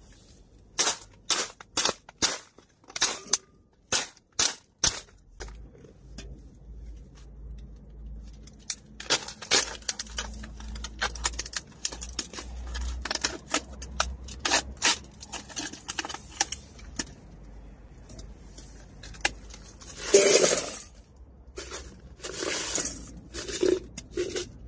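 A hatchet knocks repeatedly against a frozen plastic water bottle to break up the ice inside, giving a run of sharp knocks and cracks. Near the end, chunks of ice clatter into a stainless steel bowl.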